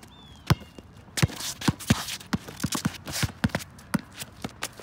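Basketball dribbled on an outdoor concrete court: a run of sharp bounces, about two to three a second, with footsteps and shoe scuffs on the concrete between them.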